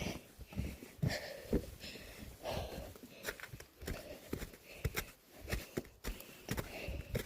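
Footsteps climbing stairs, an irregular series of short knocks, with a person breathing hard from the exertion of the climb.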